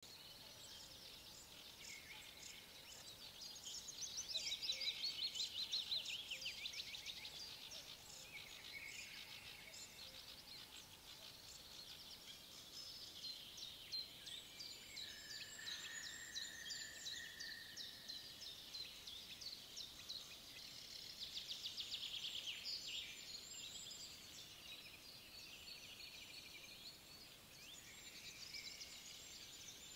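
Several songbirds singing at once in a spring chorus: overlapping rapid trills and chirps, loudest about four to six seconds in, with one held whistle about halfway through.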